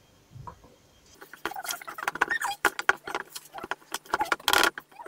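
Metal spoon stirring and scraping a sticky ground-peanut and honey mixture against a plastic bowl: a quick run of scrapes with small squeaks starting about a second in, the loudest near the end.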